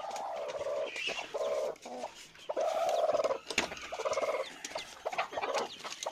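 Broody native hen sitting on her nest of newly hatched chicks, giving about four drawn-out clucks, each half a second to a second long. A sharp tap comes about three and a half seconds in.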